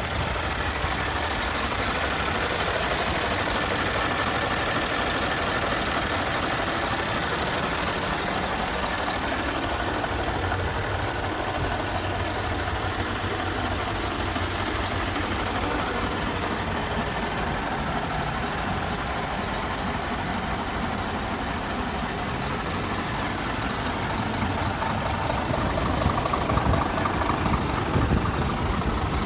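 Scania G360's five-cylinder diesel engine idling steadily.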